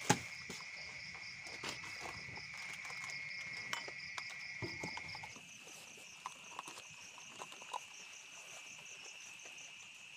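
A chorus of night insects such as crickets, a steady high shrill trill with a faster pulsing chirp above it, shifting slightly higher about halfway through. Scattered sharp knocks and handling clicks sound over it, the loudest one right at the start.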